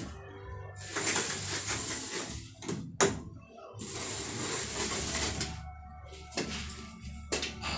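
A plastering tool scraped along a freshly plastered cement wall in two long strokes, with a sharp knock about three seconds in and a few lighter knocks near the end.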